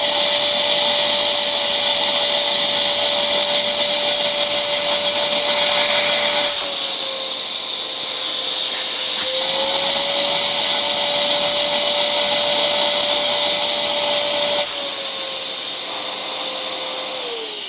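Vacuum cleaner running steadily with a high whine, its suction applied to a cracked phone screen to draw out trapped moisture. The pitch sags and recovers about six seconds in, dips slightly again near the end, and then starts to wind down as the motor is switched off.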